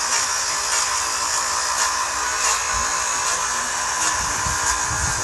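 A power tool running steadily, most of its sound high-pitched.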